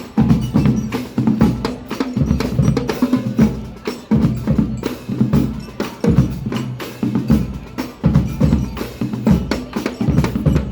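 Marching band percussion section drumming a steady rhythm, with bass drums and crisp snare-drum and stick strikes.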